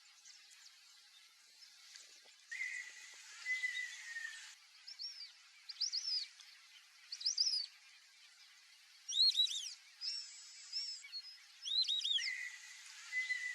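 White-faced whistling ducks calling: clusters of two to four high, arching whistles, repeated every second or so. Twice a steady high tone with a hiss runs for a couple of seconds beneath them.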